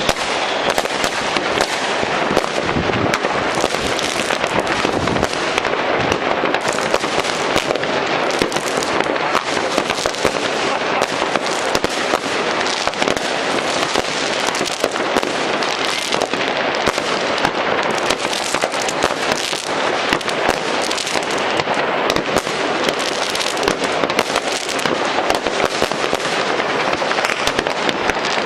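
New Year's Eve fireworks and firecrackers going off all across a city at once: a continuous rattle of overlapping bangs and crackles with no pause.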